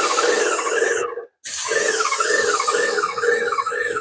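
Airless paint spray gun with a 515 tip spraying in a loud hiss, with a whistle warbling up and down about twice a second. The trigger is let go for a moment about a second in, then pulled again. The tip is clogging and spraying unevenly.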